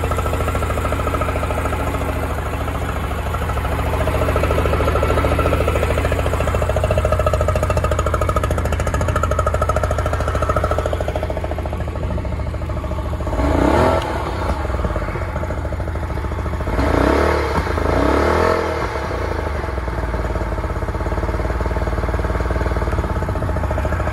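40 hp Yamaha two-stroke outboard running at idle, blipped up twice in the second half, each time rising in pitch and dropping back to idle.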